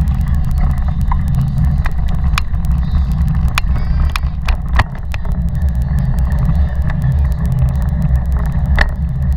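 Taga 2.0 cargo bike rolling along a path, heard from its front box: a steady low rumble with irregular sharp rattling clicks as the bike jolts over the ground.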